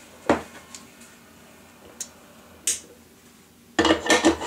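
A few sharp clicks and light knocks of small hard objects being handled on a workbench, spread out at first, then a quick cluster of clatter near the end.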